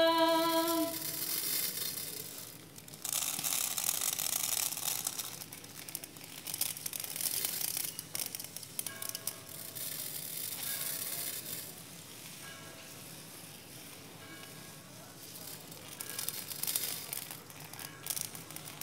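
The last held note of a women's a cappella folk-song refrain fades out about a second in. A pause between verses follows, with stretches of rustling, crackling noise and faint steady tones.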